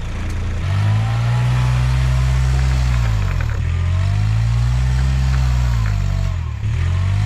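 Kubota's engine revved hard in repeated surges, its pitch climbing, holding, then falling away twice and climbing again near the end, as it strains on a rope tied to a stuck tree.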